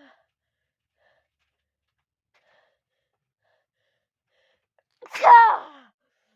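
A woman sneezes once, loudly, about five seconds in. It is a sneeze set off by tickling her nose.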